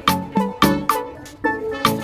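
Instrumental background music with a steady, quick beat.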